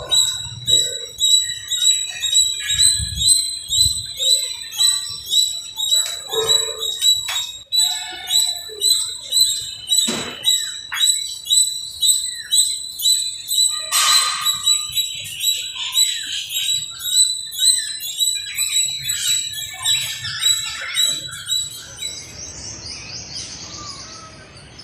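Birds chirping: a dense chorus of repeated high chirps, pulsing about two to three times a second, that fades to a faint hiss near the end.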